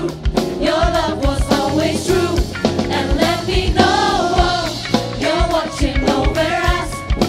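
Gospel choir singing an upbeat song with band accompaniment and a steady drum beat.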